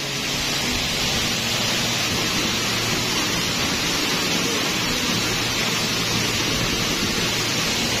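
Steady roar of a waterfall pouring into its plunge pool, a constant rush of falling and churning water.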